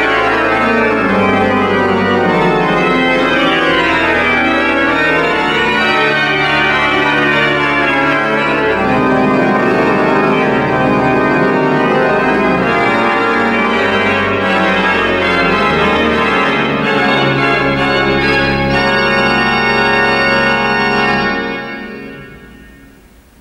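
Church pipe organ playing a loud improvisation: full, dense chords over sustained low bass notes, with moving lines in the upper voices. Near the end it stops and the sound dies away in the church's reverberation.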